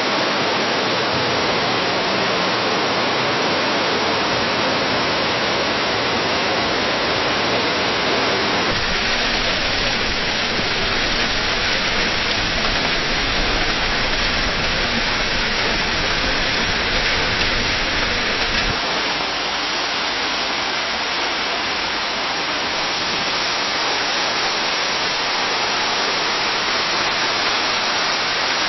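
Waterfall cascading down a cliff: a steady, even rush of falling water. The character of the rush changes abruptly twice, about nine seconds in and again about nineteen seconds in, as one waterfall recording gives way to another.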